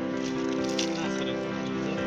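Background music: held notes that move in steps from one pitch to the next.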